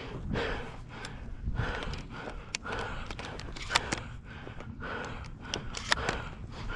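Footsteps swishing through dry grass at a steady walking pace, with a person's heavy breathing and a few sharp clicks.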